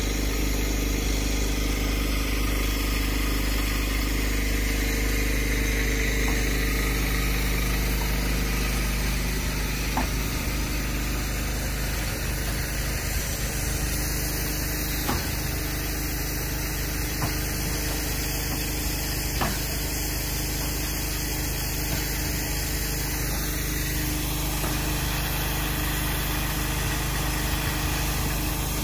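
DR class 52 steam locomotive 52 8154-8 standing at the platform with steam up: a steady hiss of steam over a steady low hum, with a few faint clicks.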